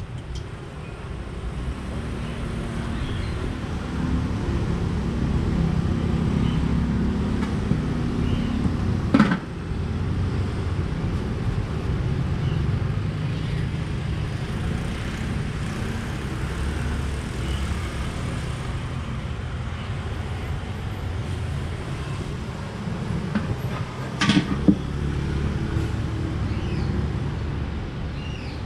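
Street traffic: engines of passing cars and motor scooters making a steady low rumble. A sharp knock comes about nine seconds in, and a few more close together about twenty-four seconds in.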